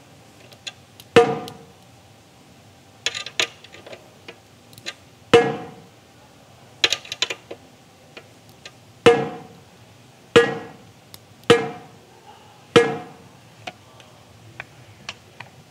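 Ludwig Black Beauty snare drum's bottom head tapped lightly near one lug after another, about ten taps each ringing briefly at a clear pitch, with small clicks between them. The head is being tuned lug by lug to an even pitch of about 400 Hz.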